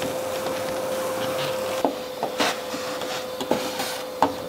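Shop vacuum running with a steady hum while its hose nozzle is dragged over the fiberglass cockpit floor and walls. Several short knocks and scrapes as the nozzle hits the surface.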